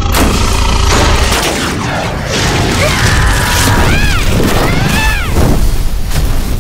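Cartoon sound effects: a loud, steady rumble with crashing noise as a ball rolls across a wooden floor, with a character's voice squealing in two or three rising-and-falling cries in the second half.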